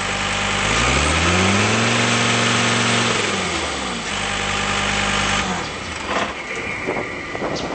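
2011 John Deere 332D skid steer's turbo diesel engine revved up, held, and brought back down to idle, then shut off about five and a half seconds in, leaving a few clicks and knocks.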